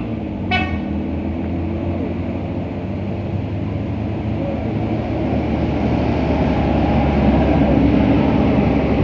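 A road vehicle's engine rumbles and grows louder in the second half as it comes closer. About half a second in there is one very short horn toot.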